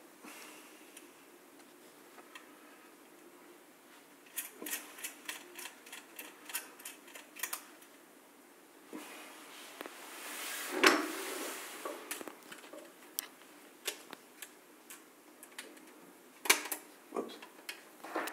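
Small metallic clicks and taps as a nut is turned onto a bolt with pliers on a circuit-board bracket, coming in bursts of quick ticks. A brief rustle with one sharp knock comes about ten seconds in.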